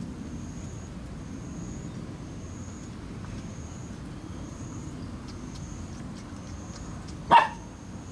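Shiba Inu puppy giving a single short, loud bark near the end, over a steady low background hum.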